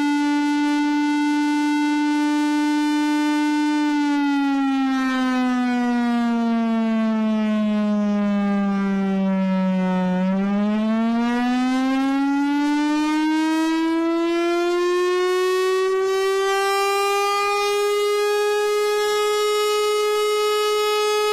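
Warning siren sounding one long, buzzy wail: it holds a steady pitch, slides down for about six seconds, turns sharply about halfway through, then climbs to a higher pitch and holds it.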